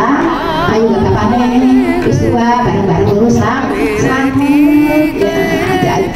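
Music with a voice singing a wavering, ornamented melody with strong vibrato.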